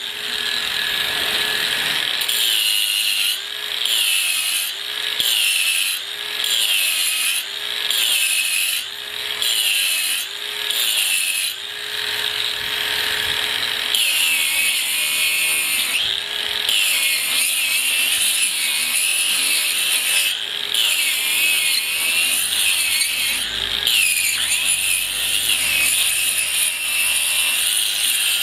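ToolPRO 18V brushless angle grinder with a diamond cup wheel grinding concrete. Its motor whine dips in pitch and recovers about every second and a half as it is loaded, then runs steadier with a few dips later on.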